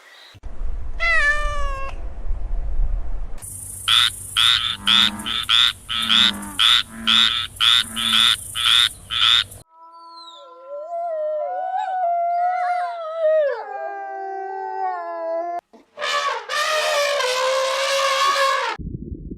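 A run of different animal calls, one recording after another: a short call falling in pitch over a low rumble, then a fast series of about a dozen repeated calls, then a long wavering call that slides down in pitch, and a last harsher call near the end.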